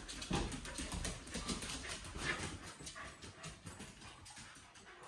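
Mini Australian Shepherds moving about on a hardwood floor, their claws clicking in many quick, uneven taps.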